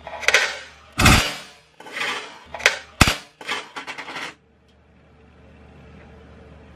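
A quick series of sharp bangs and short noisy bursts over the first four seconds, the two loudest about a second and three seconds in, then only a faint steady hum.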